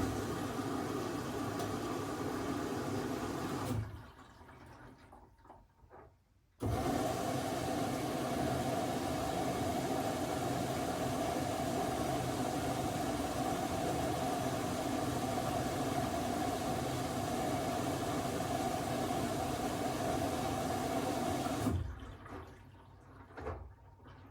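Miele W1 Active WCA 030 washing machine filling with water at the start of its wash: a rushing inflow that switches on and off abruptly, about four seconds, a short pause, then about fifteen seconds more.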